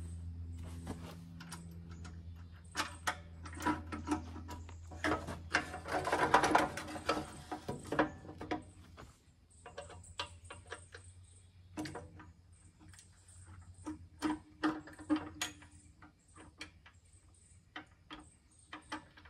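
Footsteps and a string of light clicks and knocks as the controls and parts on the engine of a compact gas log splitter are handled before it is started, with a rustle about six seconds in. A low steady hum in the background fades out about halfway through.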